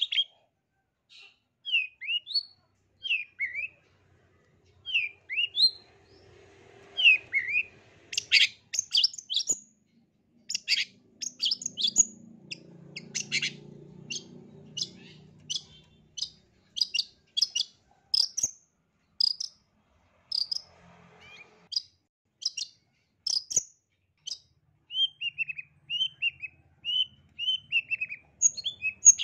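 Long-tailed shrike singing. It starts with scattered short chirps that rise and fall, then gives a fast run of sharp high notes, and near the end a string of quick down-slurred notes.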